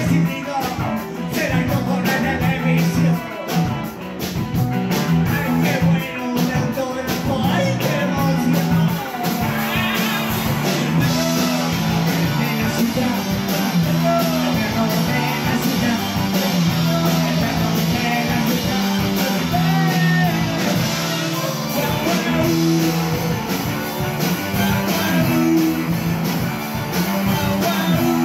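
Live rock band playing a New Wave song: drums, bass guitar and electric guitar, with a man singing over them.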